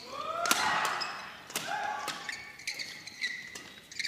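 Badminton rally: a string of sharp racket strikes on the shuttlecock, with short rising squeaks of court shoes on the floor between the hits.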